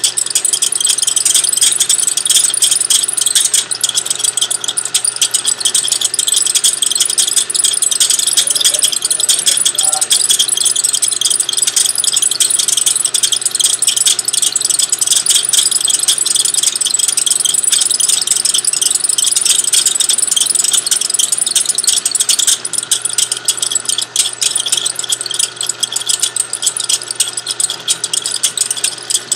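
Drill press boring out a broken bolt in a turbocharger housing: the bit cutting into the metal with a steady, dense chattering rasp over the hum of the drill's motor.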